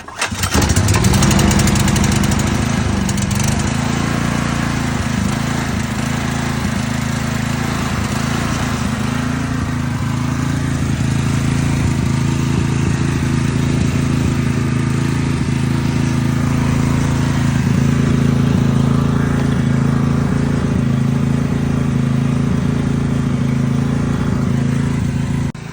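Portable generator's engine catching suddenly, its pitch climbing for about a second, then running steadily.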